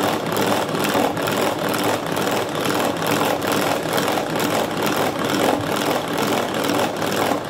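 Tupperware Saetta Chef hand-cranked whisk turned quickly: a steady whirring of its gears and beaters with a fast, even pulse from each turn, churning egg yolks into whipped egg whites in the plastic jug. It stops near the end.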